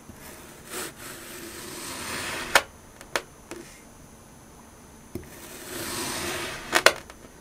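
A knife slicing down through a block of kinetic sand twice, each cut a gritty, crunchy scraping that grows louder and ends in a sharp tap, with a few light ticks between the two cuts.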